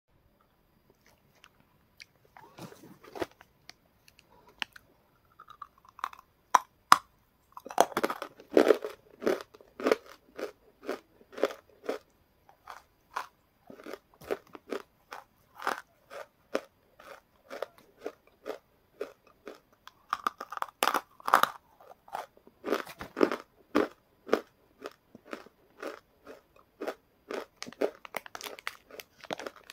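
Close-up crunching and chewing of hard, brittle chunks of roasted clay: many sharp separate cracks that come in dense clusters between quieter chewing.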